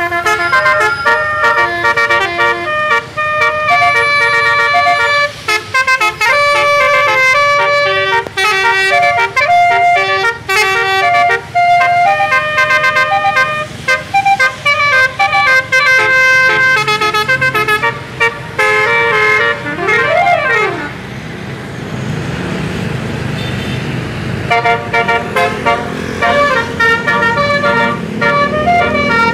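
Full telolet bus horn: roof-mounted air-horn trumpets playing a fast, loud melody of short notes. About twenty seconds in comes a quick sliding tone, then a few seconds of bus engine and road rumble before the horn tune starts again.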